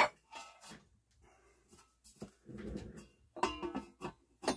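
Handling sounds of a turntable's cover plate being set over the open chassis and shifted into place: a sharp knock at the start, a short scraping rub, then a cluster of clinks and a last knock near the end.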